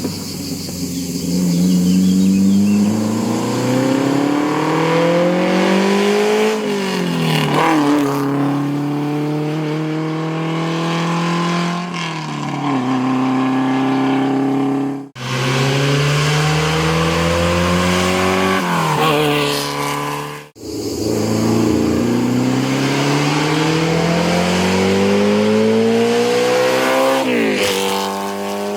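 A historic racing car engine accelerating hard up through the gears. Its pitch climbs and then falls sharply at each gear change. The sound breaks off abruptly twice and picks up again at full throttle.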